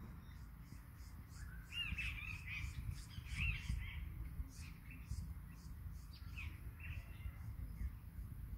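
Wild birds calling in two bouts of harsh and warbling calls, the loudest between about two and four seconds in and a shorter bout near seven seconds. Behind them run a steady low rumble and a fast, high, regular chirping pulse.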